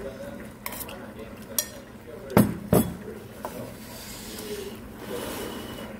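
Metal chopsticks clinking and scraping against a stainless-steel bowl while stirring spicy fish stew, with two sharp knocks a moment apart about two and a half seconds in.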